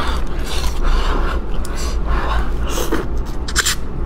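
Close-miked eating sounds: chewing and smacking on mouthfuls of soft braised chicken, with breathing between bites and a steady low hum underneath.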